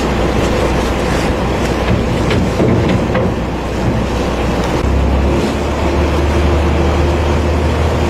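Boat engine running steadily, a loud low hum under an even rush of noise. The hum deepens and strengthens about five seconds in.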